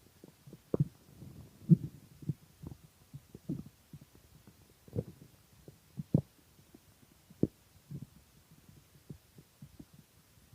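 Human stomach growling from hunger: irregular short, low gurgles and pops, a few louder than the rest.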